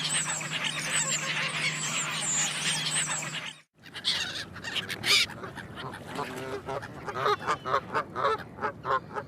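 Geese honking. For the first three and a half seconds a dense mix of bird calls runs over a steady hum; after a brief break a goose gives rapid, repeated honks, about two or three a second.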